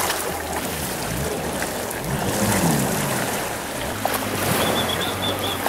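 Speedboat outboard engines idling with a low steady hum, under the wash of shallow sea water, with a string of short high chirps near the end.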